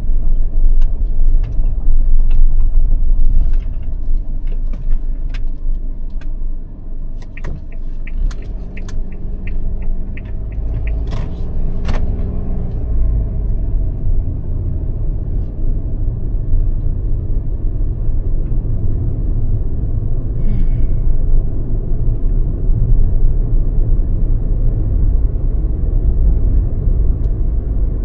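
Car driving, a steady low road rumble heard from inside, with a quick run of light ticks about a third of the way in.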